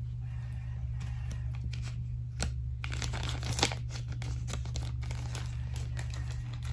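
Clear plastic biohazard specimen bag crinkling and rustling as it is handled with a sample tube inside, with many short crackles that grow busier after the first few seconds.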